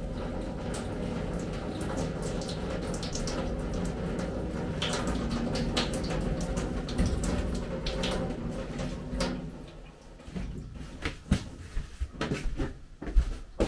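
A steady rush of running water that stops about ten seconds in, followed by scattered clicks and knocks of things being handled.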